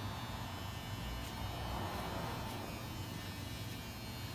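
Electric hair clippers running with a steady buzz while cutting a child's very short hair.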